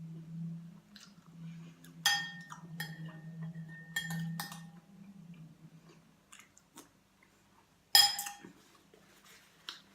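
Metal spoon clinking against dishware, with sharp ringing strikes about two, four and eight seconds in and soft eating noises between. A low steady hum runs beneath and stops about six seconds in.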